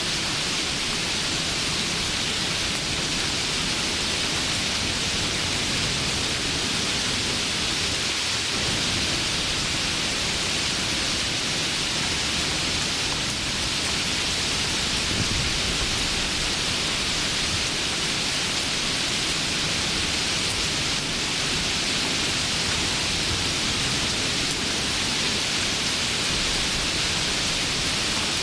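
Steady heavy rainfall, a continuous even hiss of rain.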